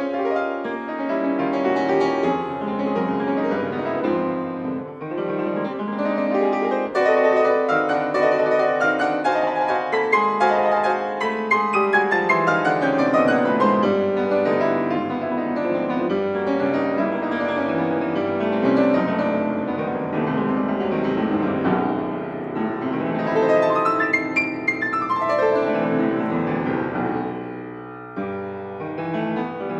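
Solo piano playing a classical concert piece in a dense, flowing texture of many quick notes, with a falling bass run about twelve seconds in and a rising figure near twenty-four seconds; it grows softer just before the end.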